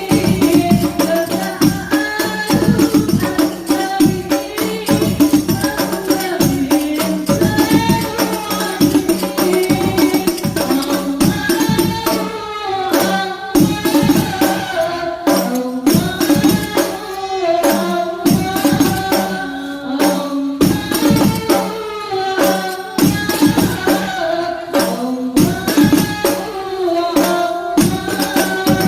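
A habsyi ensemble performing: voices singing a melody together over rebana frame drums beating a busy, steady rhythm.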